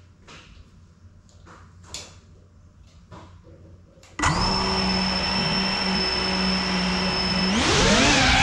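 A few faint knocks, then the GEPRC Cinelog 35 cinewhoop's brushless motors spin up suddenly about halfway through and idle with a steady high whine. Near the end the whine rises sharply in pitch as the throttle comes up for takeoff.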